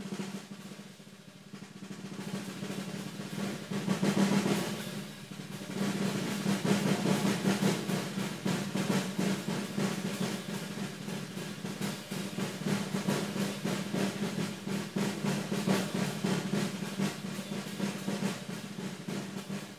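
Drum kit played in fast, continuous snare rolls, fading in and swelling about four seconds in. This is the improvised drum accompaniment to a saxophone being deep-fried in a performance piece.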